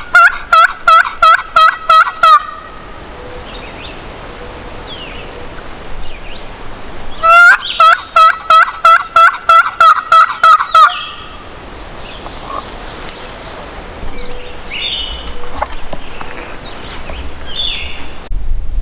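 Hen turkey yelps made on a turkey call to draw in a gobbler: two runs of about ten loud notes each, a few seconds apart, every note breaking from high to low. A few short songbird chirps follow.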